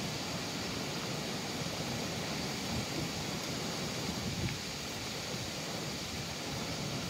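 Steady rushing of a flowing river, with wind noise on the microphone.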